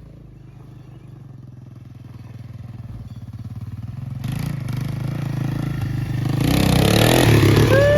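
1986 Yamaha YTM225 three-wheeler's single-cylinder four-stroke engine running as it rides toward the microphone. It gets steadily louder, with a rush of noise near the end as it comes close.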